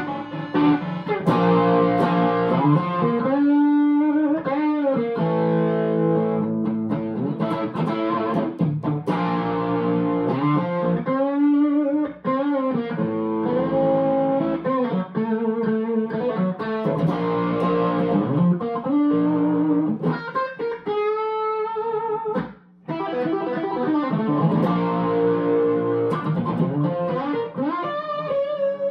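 1961 Gibson SG Special electric guitar played through an amplifier on its P-90 bridge pickup: ringing chords and single-note lines with string bends, with one short break about two-thirds of the way through.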